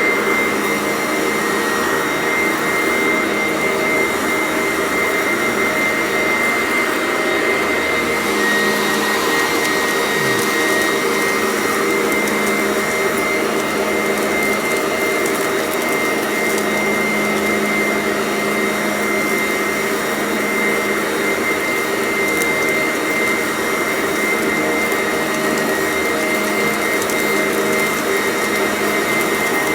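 Sanitaire commercial upright vacuum cleaner running steadily, its motor giving a constant high whine over the suction noise.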